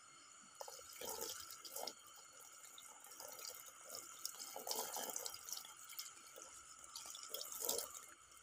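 Water poured from a plastic dipper splashing over a large snakehead fish and onto the ground as the fish is rinsed by hand. The splashes come in uneven spurts starting about half a second in, with the loudest near the end.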